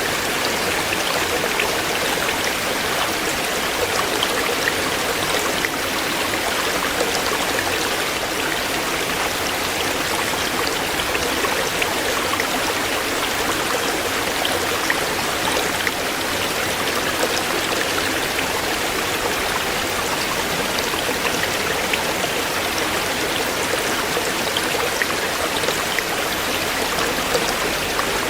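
A shallow stream flowing over stones, a steady rushing babble with small splashes and drips scattered through it.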